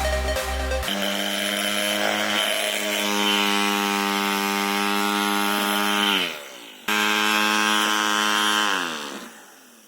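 Toy DC motor of a homemade model jet engine spinning its fan with a steady whine. About six seconds in it runs down in pitch as the power is cut, then starts again suddenly at full speed and runs down once more near the end.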